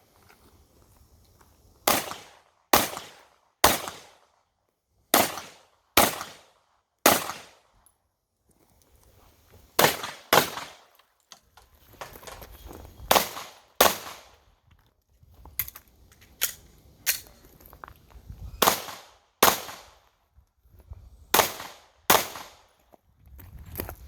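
Pistol shots fired in quick pairs and short strings during an action pistol course of fire. About six sharp cracks come in the first seven seconds, then more pairs follow with brief pauses between them.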